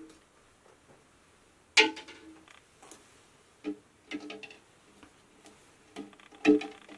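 Several light, separate knocks and clinks as raw eggs are set one by one into a wok of water, the shells tapping against the pan and each other.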